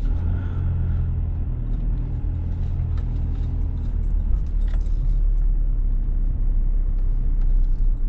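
Inside a car's cabin driving slowly over a bumpy grass track: a steady low rumble from the engine and tyres, with scattered small clicks and rattles throughout.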